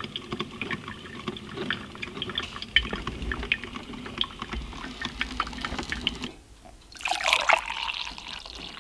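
Drip coffee maker brewing, with a steady patter of small drips and pops. After a brief lull about seven seconds in, coffee is poured from the carafe into a mug.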